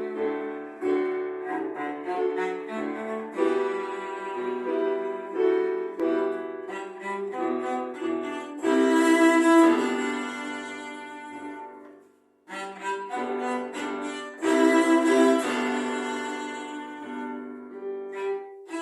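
Bowed string music, led by violin, playing pitched notes with several sounding together. It breaks off briefly about twelve seconds in, then resumes.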